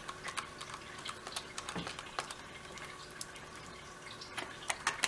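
Small irregular clicks and ticks of a screwdriver turning a small screw into a laptop's plastic bottom case, with a few sharper clicks near the end.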